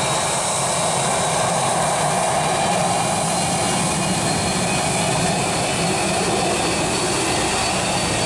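Twin rear-mounted jet engines of an MD-80-series airliner running steadily at taxi power as it turns onto the runway: a steady rush with a thin, high turbine whine.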